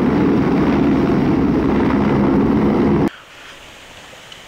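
Helicopter sound effect, engine and rotor running loud and steady, then cutting off abruptly about three seconds in.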